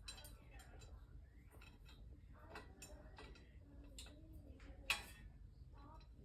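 Faint scattered metallic ticks and clicks of a screw being turned into a steel dresser frame, with one sharper click about five seconds in.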